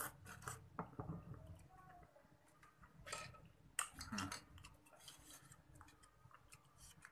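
A person eating crab noodles by hand: a few short slurps and sucking sounds from the fingers, with light clicks and clinks of crab shell and fingers against the plate.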